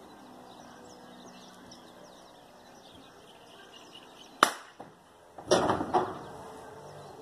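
A single sharp gunshot about four seconds in, followed a second later by a short burst of loud banging and rattling in the steel stock trailer. Birds chirp faintly in the background.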